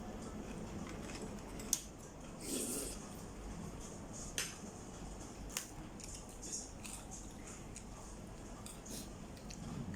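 Eating at a plate: cutlery clicks sharply against the dish a few times, with softer mouth and food sounds between.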